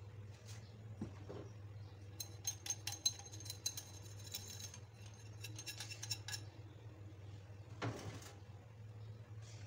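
Metal wire whisk clinking and rattling against the side of a bowl while stirring dry flour, in two quick runs of ringing clicks. A dull knock comes about a second in and another near the end.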